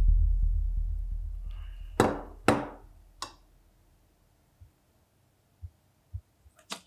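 A deep bass boom from a film score, fading out over about three seconds. Two sharp knocks about two seconds in, then a few faint taps.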